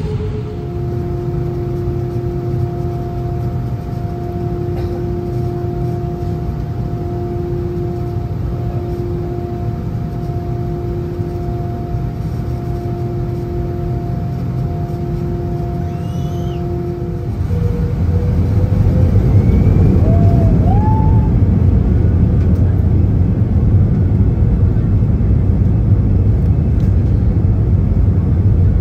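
Airbus A320-200 engines and airframe heard from the cabin while the airliner taxis: a steady low rumble with a held hum. About seventeen seconds in the hum stops and the rumble turns louder and deeper.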